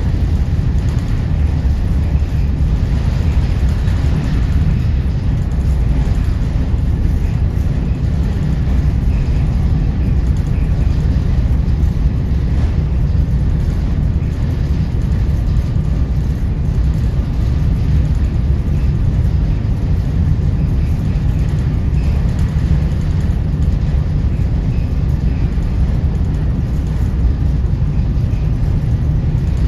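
Steady low rumble and noise aboard a car ferry under way.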